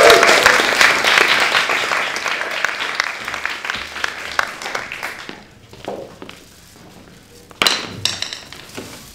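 Audience applauding, loud at first and dying away over about five seconds. Near the end comes a sudden short clatter and rustle.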